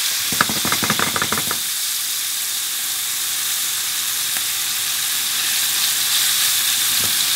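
Wagyu sirloin steak searing in smoking-hot oil in a frying pan: a steady, loud sizzle, with a quick run of crackling pops in the first second and a half. The oil is at smoking point for a hard sear that builds the crust.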